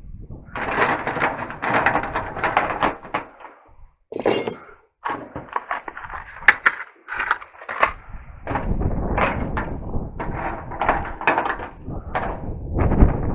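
Loose junk being handled and cleared off a pickup's toolbox: clattering and a string of sharp knocks of objects striking metal and each other. Wind buffets the microphone for the second half.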